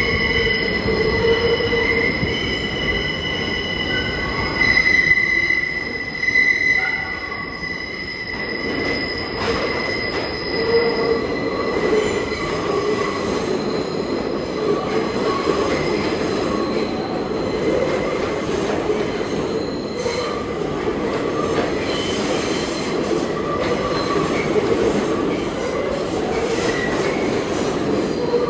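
New York City subway train running through the station, its steel wheels squealing on the rails over a steady rumble. There are a few brief louder swells of the squeal.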